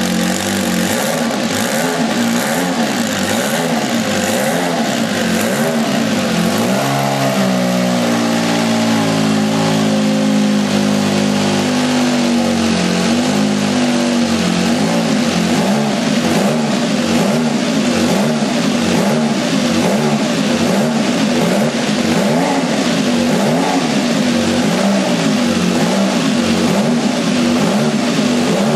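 Ferrari 156/85 Formula One car's 1.5-litre turbocharged V6 running with the car standing still. The revs rise and fall in quick waves as the throttle is blipped again and again, with a sweep up about a quarter of the way in and a few seconds held steady and higher before the blipping resumes.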